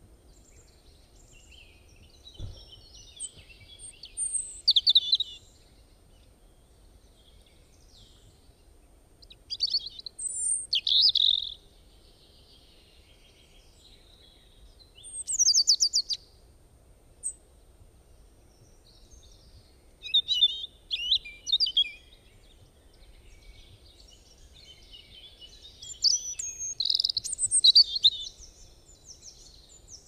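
Songbirds singing in short, high-pitched, twittering phrases, five phrases spaced a few seconds apart, over a faint steady background hum.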